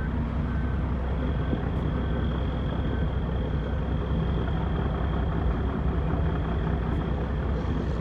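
Heavy dump-truck diesel engine idling with a steady low drone. Faint high beeps repeat about every half-second over the first three seconds.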